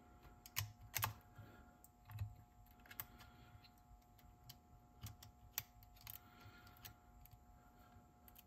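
Faint, irregular small clicks and taps of a small screwdriver and springs against the metal tape transport of a Nakamichi 680ZX cassette deck while pinch-roller springs are fitted.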